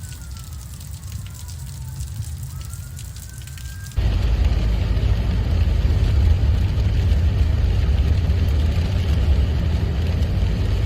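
Tornado warning sirens wailing, at least two of them overlapping in slow rising and falling tones, over light rain. About four seconds in it cuts abruptly to a loud, steady rush of storm wind and rain on the microphone.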